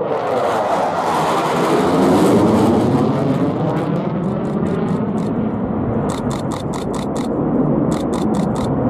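Single Klimov RD-93 turbofan of a JF-17 Thunder fighter running in afterburner, a loud jet roar with a sweeping, phasing tone as the aircraft passes and pulls away, loudest about two seconds in. From about six seconds in, bursts of rapid high clicks sound over the roar.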